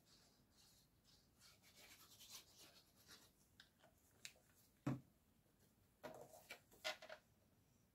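Sheets of scrapbook paper being handled on a scoring board: soft rustles and scrapes, a short knock about five seconds in, then a brief cluster of crisp paper rustles and taps.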